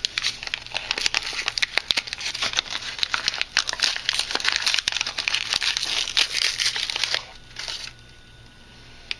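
Brown paper wrapping on a packet of rifle cartridges being torn open and crumpled by hand, a dense crackling rustle with sharp crinkles that dies down about seven seconds in.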